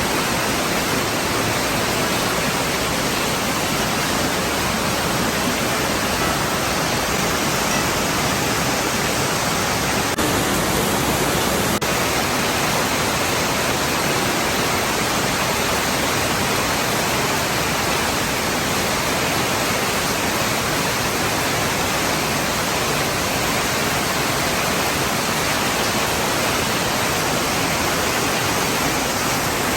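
Heavy tropical rain falling in a steady, even downpour.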